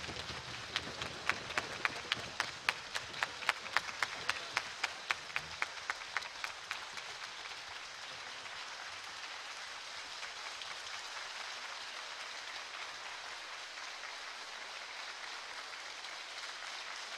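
Audience applauding. For the first six seconds or so, loud, evenly timed claps stand out at about three a second, then the clapping settles into steady applause.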